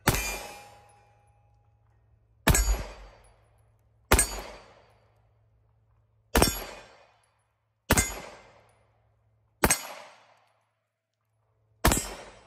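Rock Island Armory 5.0E pistol fired seven single shots at a slow, even pace, one every one and a half to two and a half seconds, each sharp report trailing off in a short echo.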